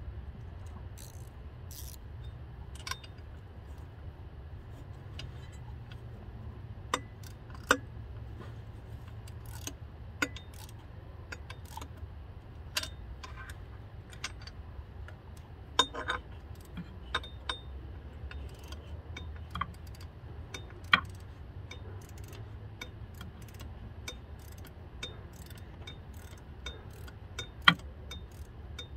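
Hand tools clinking and clicking against metal at irregular intervals while working around a turbocharger in an engine bay, over a steady low hum.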